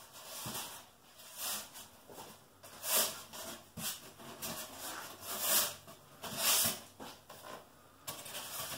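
A series of short hissing noises, about one every second or so, with a few light handling sounds between them.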